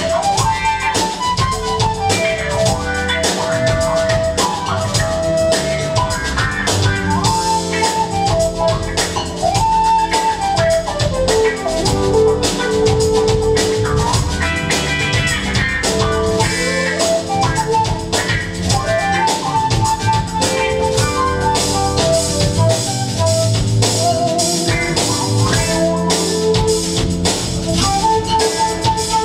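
Live band playing a song: drum kit keeping a steady beat under electric guitars and keyboard, with a lead melody line that glides between notes over the top.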